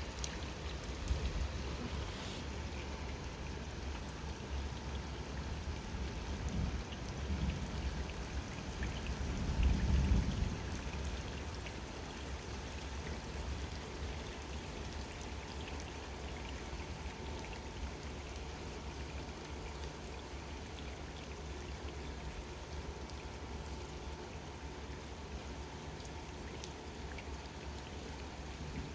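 Steady rain falling outside an open window during a thunderstorm. A low rumble of thunder swells and peaks about ten seconds in, then fades back under the rain.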